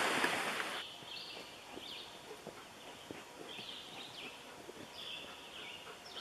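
Rushing stream water that fades out within the first second, then quiet forest air with a small bird giving short, high, down-sweeping chirps about every half second to a second.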